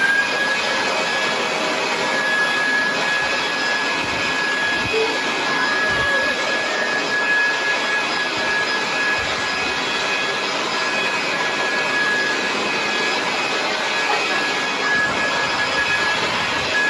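Handheld leaf blower running flat out: a steady rush of blown air with a high motor whine held on one pitch.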